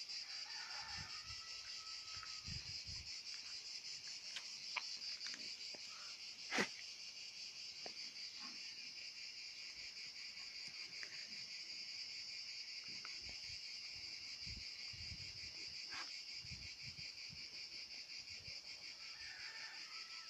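A steady, high-pitched chorus of chirping insects, pulsing rapidly without a break, with a single sharp click about six and a half seconds in.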